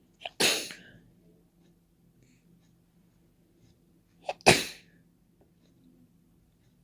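A person sneezing twice, wet and open without a tissue, about four seconds apart. Each sneeze is a brief lead-in followed by a sharp, sudden burst, and the second is louder.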